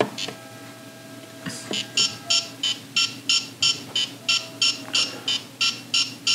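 Etch A Sketch Animator toy playing back its animation with a train of short electronic beeps, about three a second, starting about a second and a half in after a button click. This is the toy's built-in playback noise, which has no way to be switched off.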